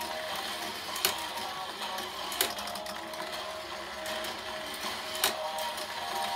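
Battery-powered plastic slope toy running: its small motor whirs and the plastic parts rattle as toy Blue Impulse jets are carried up and roll down the track. Sharp plastic clicks stand out about a second in, at about two and a half seconds, and at about five seconds.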